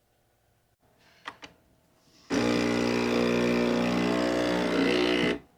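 Coffee machine running: a couple of clicks, then a loud, steady mechanical hum that starts abruptly a little over two seconds in and cuts off suddenly about three seconds later.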